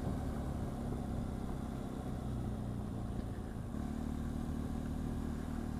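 BMW R1200GS flat-twin boxer engine running steadily at low road speed, with a steadier engine tone coming in a little under four seconds in.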